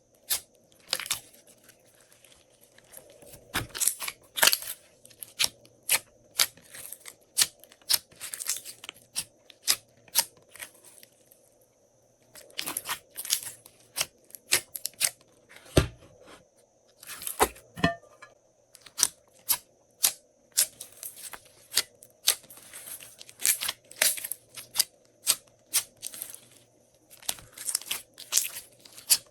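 Glossy slime being squeezed and stretched by hand, giving an irregular run of sticky crackling pops and clicks, with a short lull about eleven seconds in.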